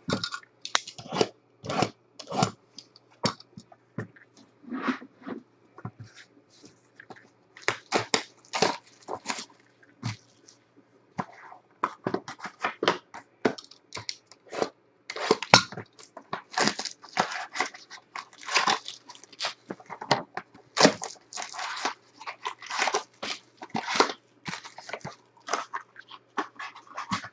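Cardboard trading-card box and foil-wrapped packs being torn open and handled: irregular crinkling, rustling and tearing in quick bursts.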